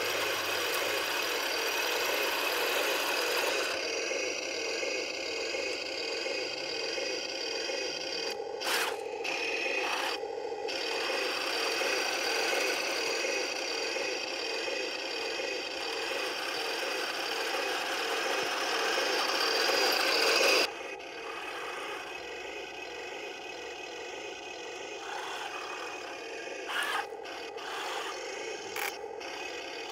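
Heng Long 1:16 scale RC tank running: a steady rasping, mechanical noise from its small motors, gearbox and tracks. It drops sharply in level about two-thirds of the way through.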